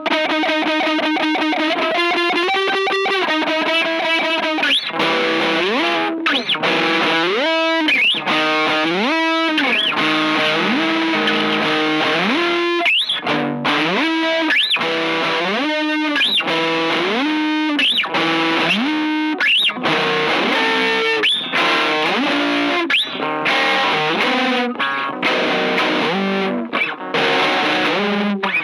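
Distorted electric guitar through effects playing a slow, wailing line. It opens with rapidly repeated notes, then from about five seconds in moves into many sliding bends up and down in pitch.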